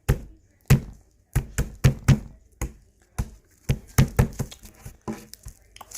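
A run of irregular knocks and taps, about two or three a second, with a short pause about a second in.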